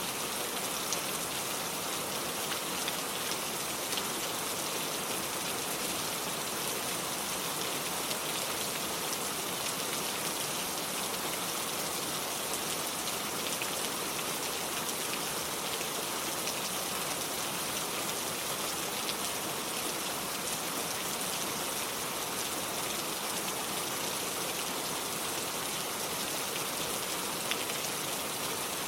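Steady rainfall, a continuous even hiss with scattered drops pattering on hard surfaces.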